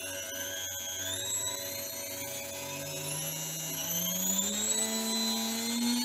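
A 300-watt washing-machine motor driving a homemade cut-off saw's disc, spinning up slowly under a speed controller. Its whine rises steadily in pitch and grows louder toward the end.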